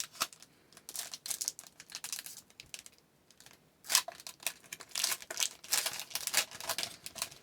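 Foil trading-card pack wrapper being torn open and crinkled in the hands, a run of crackly rustles with a sharp rip just before the middle.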